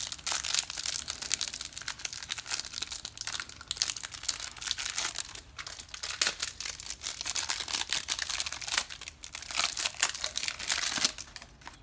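Plastic card-pack wrapper crinkling and tearing as a pack of football trading cards is opened and the cards handled, an irregular crackle that dies away near the end.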